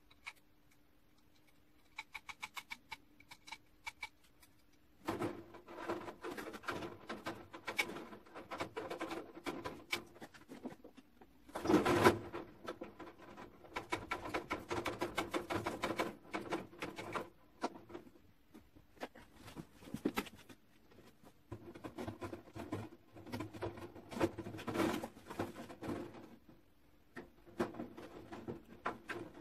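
Galvanised chicken wire mesh rattling and scraping as it is unrolled and pressed into place over a wooden planter box, a dense crackle of small metal clicks with a louder clatter about twelve seconds in. Before that, near the start, there is a short run of light, evenly spaced clicks.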